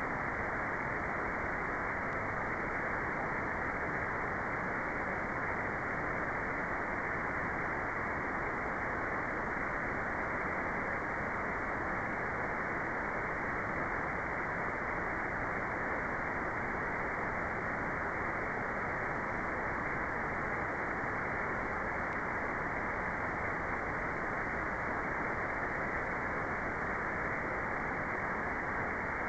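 Steady white noise, filtered so it has no high treble: an even, muffled hiss that never changes.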